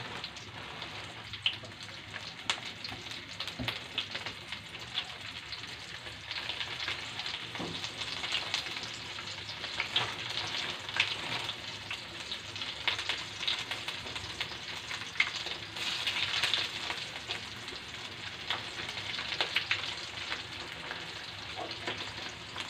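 Flour-dusted, spice-braised chicken pieces frying in hot oil in a steel wok: a steady sizzle thick with small crackling pops, swelling louder several times.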